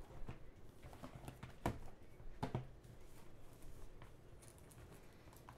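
Small cardboard trading-card boxes set down and stacked on a table: a few faint, soft knocks, the clearest about a second and a half and two and a half seconds in.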